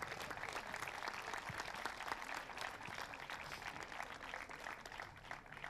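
Applause: many hands clapping, thinning out near the end.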